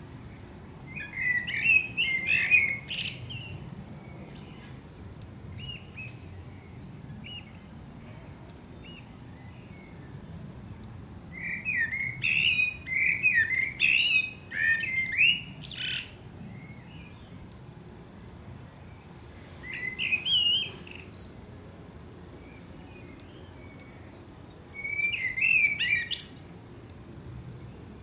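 Male Eurasian blackbird singing: four warbling phrases spaced several seconds apart, each ending in a high, thin twitter.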